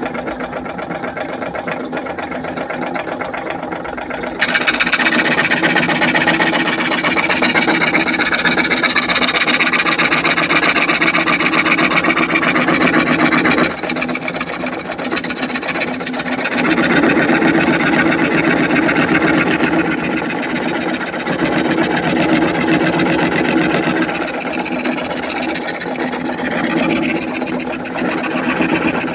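Electric power saw running and cutting wood with a steady motor sound. It gets louder and harsher from about four seconds in, and its tone shifts a couple of times as the cut goes on.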